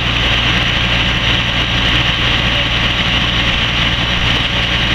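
Fire engine's diesel engine running steadily with a low hum, a steady hiss above it.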